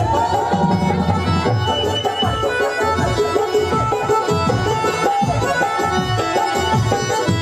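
Live Uttarakhandi folk music: a two-headed hand drum keeps a steady, driving rhythm under a melody line.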